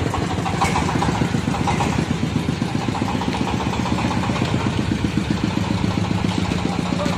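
The 24 hp engine of a three-wheeled oil-palm fruit threshing machine running steadily, with a fast, even pulse and a low hum.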